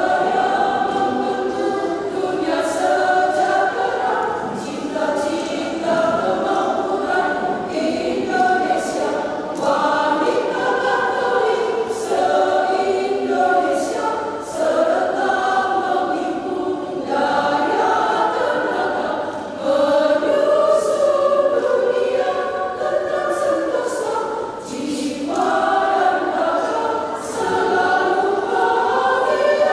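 Women's choir singing in harmony, several voice parts at once, with short breaks between phrases about a third, two-thirds and four-fifths of the way through.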